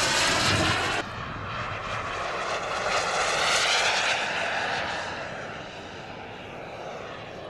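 Twin JetCat P120 gas turbines of a giant quarter-scale EE Lightning model jet flying past. They are loud at the start, drop suddenly about a second in, swell again with a sweeping pitch around three to four seconds, then fade as the jet moves away.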